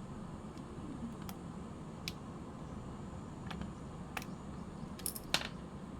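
Scattered light clicks and taps, about seven in six seconds, of small screws, a screwdriver and parts of a Yashica Super-60 Electronic Super 8 camera being handled during disassembly, over a faint steady hum.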